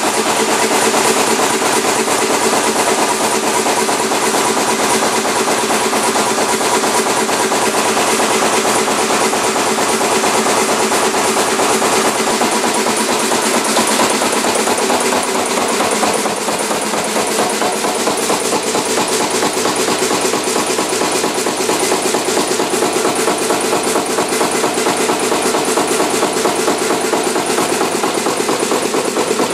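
Kromhout 2H3 marine diesel engine running steadily, with a rapid, even mechanical clatter.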